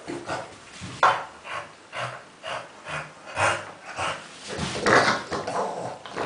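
French bulldog making pig-like grunts and snorts in a run of short bursts, about two a second, the loudest about five seconds in.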